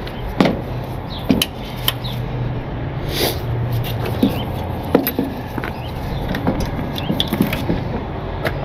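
Scattered metallic clinks and knocks, about ten at irregular intervals, as a towing light bar and its cable are handled and set against a box truck's steel rear bumper, over a steady low hum.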